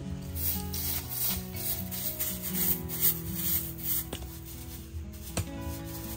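Repeated scraping and rubbing strokes inside a mud-and-clay dome oven, a hand or tool working the oven floor, over soft background music.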